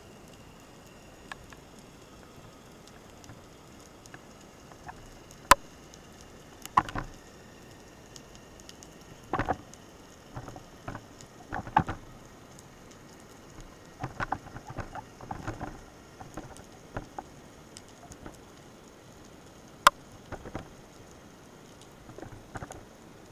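Underwater sound heard through a camera's housing during a breath-hold spearfishing dive: a steady faint hiss broken by scattered sharp clicks and bursts of crackling. Two of the clicks are much louder than the rest, about five seconds in and near the end.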